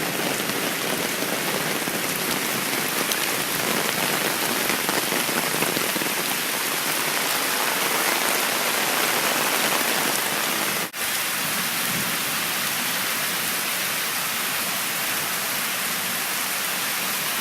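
Heavy rain falling, a steady hiss that cuts out for a moment about eleven seconds in.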